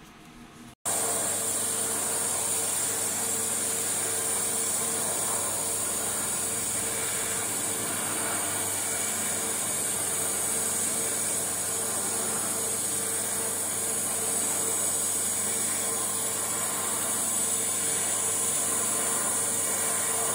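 TIG welding arc running steadily: an even, continuous hiss with a faint steady tone under it, starting abruptly about a second in, while a surfacing bead is laid.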